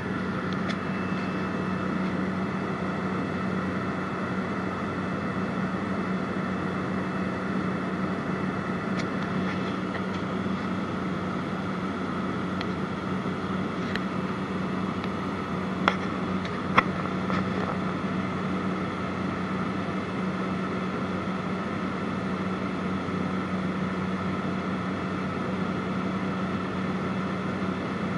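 Light aircraft's engine and propeller droning steadily, heard from inside the cabin in flight. Two short sharp clicks stand out about halfway through.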